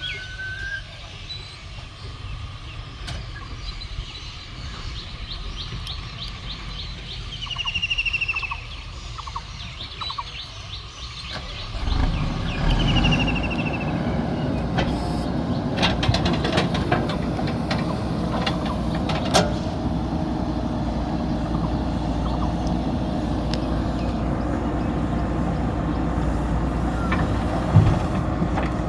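Birds chirping over a low engine rumble. About twelve seconds in, the diesel engine of a JCB backhoe loader at work gets much louder and runs steadily, with a few sharp knocks.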